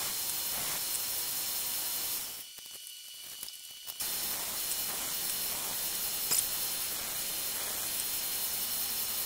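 Coote 72-inch belt grinder running with no work on the belt: a steady hiss-like whir with a faint high tone. It drops out for about a second and a half a little over two seconds in, then comes back at the same level.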